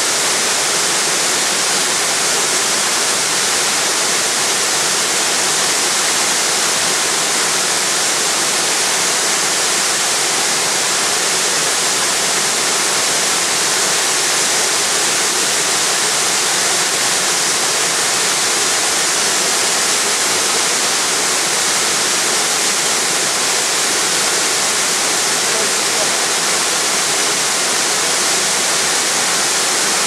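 Waterfall: a loud, steady rush of white water pouring over a rock ledge, unchanging throughout.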